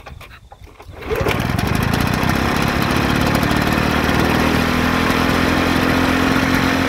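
Victa Commodore lawnmower's 160cc two-stroke engine pull-started, catching about a second in and then running steadily on choke. The engine has been rebored and resleeved, so it is nice and tight and starts readily.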